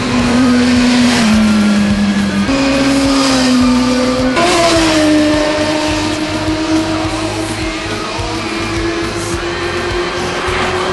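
Honda CBR600 sport bike's inline-four engine running at high revs with a steady pitch. The pitch drops about a second in, steps back up, then jumps higher about four seconds in and climbs slowly. Background music plays along with it.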